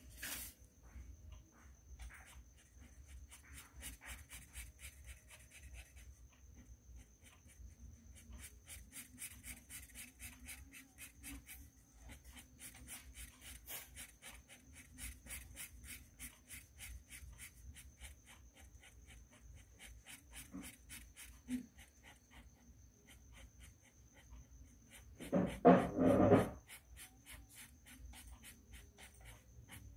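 Felt-tip marker scratching across colouring-book paper in quick short strokes, several a second, over a faint steady hum and a high thin whine. Near the end a brief, loud vocal sound cuts in for about a second.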